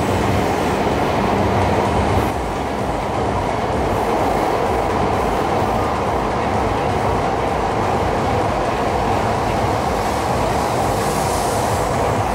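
Coupled E5 and E6 series Shinkansen train pulling out of the station and running past the platform: a steady, loud rush of wheels on rail and running noise as the cars go by.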